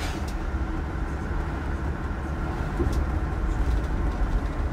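Busscar Busstar DD double-decker coach on a Scania chassis driving at road speed, heard from the driver's cab: a steady low engine and road rumble. A few brief clicks occur near the start and about three seconds in.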